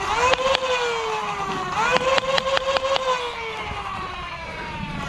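Flywheel foam-dart blaster's motors whining: they spin up at the start and again just before two seconds in, then slowly wind down. Sharp clicks of darts being fired come over the whine, most in a quick run around two to three seconds in.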